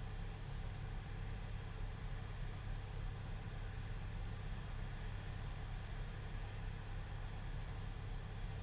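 Car engine idling steadily, a low even hum heard from inside a stopped car.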